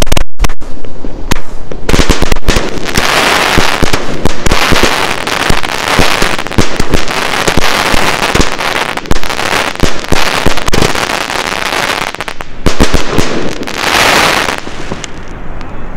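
A 25-shot consumer fireworks cake firing: a rapid, overlapping string of loud launch thumps and aerial bursts with a dense crackle between them, dying down about a second and a half before the end.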